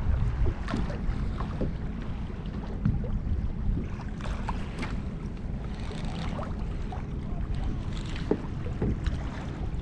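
Wind buffeting the microphone as a steady low rumble, with small waves lapping and slapping against a plastic fishing kayak's hull in irregular little splashes.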